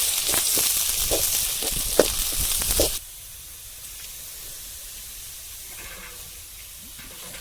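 Garlic and onions sizzling in hot oil in a pan, with a few knocks of stirring. The sizzle cuts off abruptly about three seconds in, leaving a faint, steady background.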